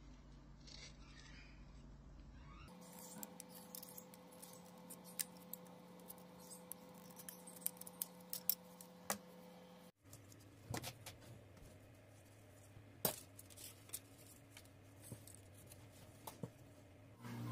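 Utility-knife blade scraping and shaving the edge of a stack of glued wooden ice-cream sticks: faint, irregular small clicks and scrapes over a steady low hum.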